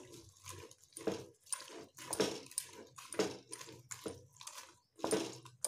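A spoon stirring and scraping thick vegetable masala with whole spices in a pot, a run of short scrapes at about two or three a second.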